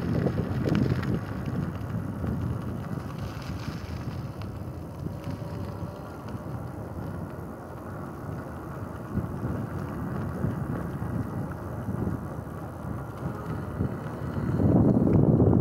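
Wind buffeting the microphone while riding a Rad Power Bikes RadRunner electric bike along a paved road. A stronger, louder gust comes near the end.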